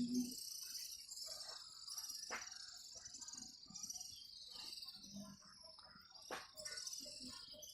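A large flock of swiftlets twittering overhead in a continuous high, fluttering chorus, with a couple of faint clicks.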